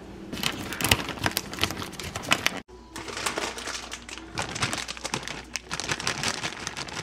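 Aluminium foil crinkling and crackling as a crumpled, reused sheet is handled and smoothed out, in two stretches broken by a brief gap about two and a half seconds in.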